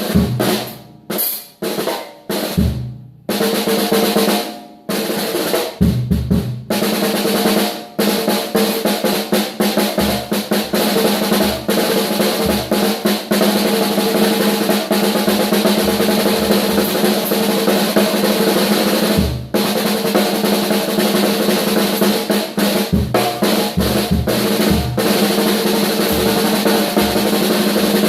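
Drum kit solo: a few separate hits and short fills at first, then fast, near-continuous snare rolls with bass drum strokes underneath, broken by a brief pause about two-thirds of the way through.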